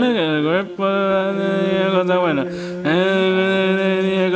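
A person singing a tune in long held notes, with a couple of short breaks between phrases.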